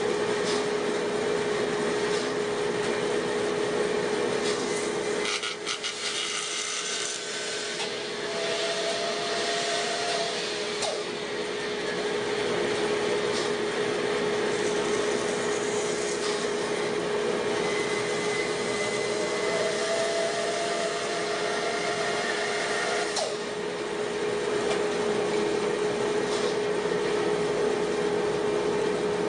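Rikon bandsaw running with a steady hum while its blade cuts through a fresh log around a round template, trimming out a round bowl blank.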